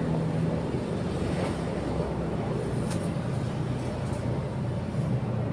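Motorcycle running at a steady cruising speed: an even engine hum mixed with road and wind noise.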